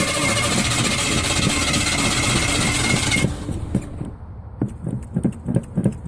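A car engine being cranked by its starter motor, with a steady high whine, for about three seconds. The cranking cuts off suddenly, and after a short lull a low, evenly spaced pulsing of about four beats a second begins.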